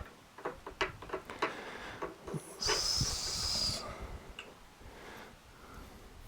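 A run of light clicks and knocks as the plastic parts of a coolant-filling funnel are handled and fitted, then, a little over two and a half seconds in, a hiss with a thin high tone in it that lasts about a second.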